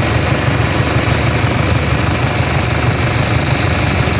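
2006 Toyota Hilux engine idling steadily, with its freshly repaired air-conditioning compressor running.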